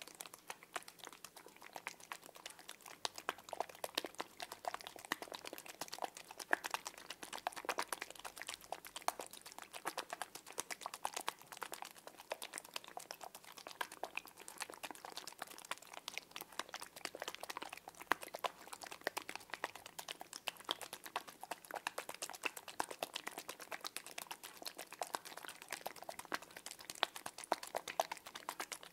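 Small water-filled plastic fruit shapes squeezed and rubbed between the fingertips close to the microphone, giving a dense, irregular patter of soft clicks and crinkles.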